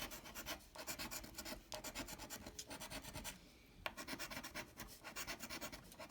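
Rapid scratching strokes rubbing the coating off a lottery scratch-off ticket, with a brief pause about three and a half seconds in.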